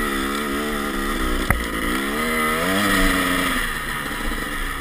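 Dirt bike engine under way on snow, its pitch wavering with the throttle, dipping about a second and a half in, then climbing again before easing off. A single sharp click comes just as the pitch dips.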